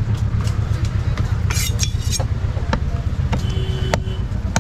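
A steady low engine-like rumble, with scattered sharp knocks and clinks of a knife on a wooden chopping block; a strong knock about four seconds in.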